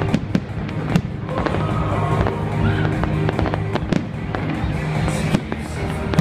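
Fireworks display: aerial shells bursting in a string of sharp bangs, several a few seconds apart, over music playing steadily underneath.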